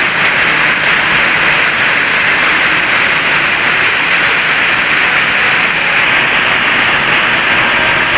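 Loud, steady rushing noise of falling and running water, with no breaks.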